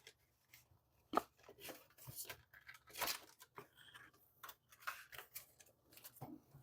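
Faint, scattered crackling and tearing of a Pokémon card three-pack blister package being pried and torn open.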